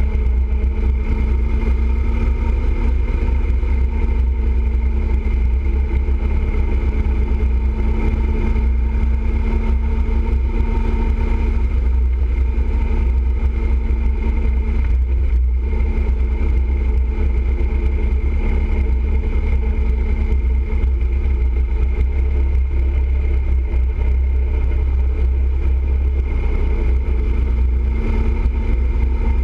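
Motorcycle engine running steadily at highway cruising speed, heard from a camera mounted on the bike, under a heavy, steady low rumble of wind and road noise.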